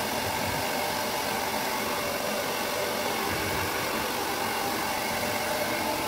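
Handheld hair dryer running steadily, an even rush of air with a faint motor whine.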